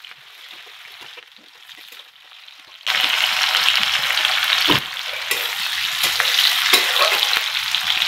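Sliced potato and onion go into hot oil in a metal kadai about three seconds in, and the faint sizzle of the oil jumps to a loud, steady frying sizzle. A metal spatula clinks against the pan a few times as it is stirred.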